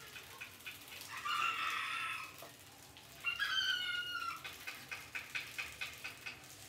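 Two drawn-out animal calls, each about a second long and falling slightly in pitch, over a run of quick light ticks.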